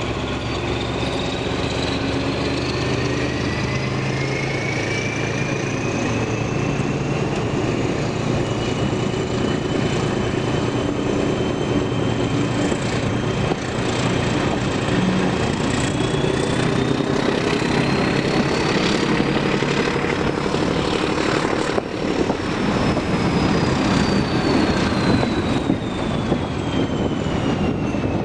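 British Rail Class 14 diesel-hydraulic locomotive D9531 working a train, its engine running steadily under power with a high whine that slowly rises in pitch and falls again near the end, over running noise from the wheels on the track.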